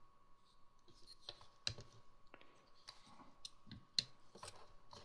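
Faint, scattered clicks and taps of a plastic 1:18 scale toy mech being handled as its leg joints are adjusted to make it stand.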